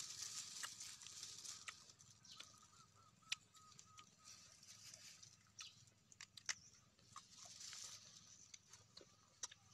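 Faint crisp crunches of teeth biting into and chewing raw green mangoes, with a few sharp bites scattered through.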